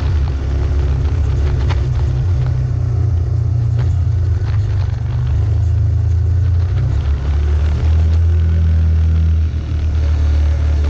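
Off-road vehicle engine running while driving slowly up a rocky dirt track: a steady low drone whose note shifts about eight seconds in, with a few knocks and rattles from the rough ground.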